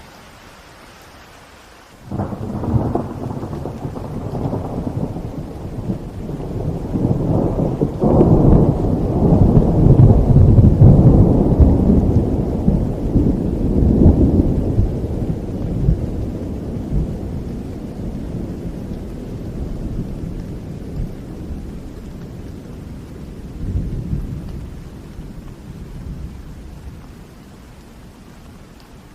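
Steady rain with a long roll of thunder that breaks in suddenly about two seconds in, swells to its loudest over the next ten seconds or so, and slowly rumbles away.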